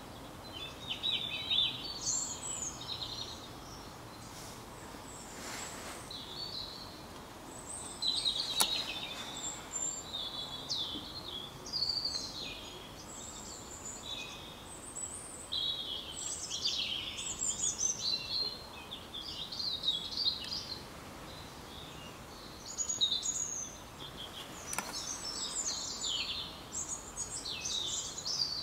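Small songbirds singing and chirping in quick phrases of high twittering notes, coming and going throughout, over a steady background hiss.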